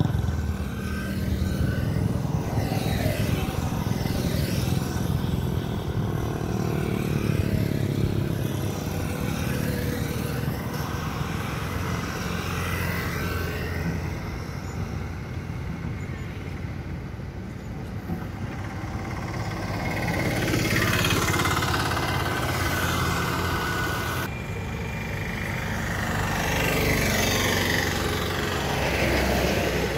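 Road traffic going by: motorcycles and other vehicles passing one after another, two louder passes swelling and fading in the second half, over a steady low diesel engine hum.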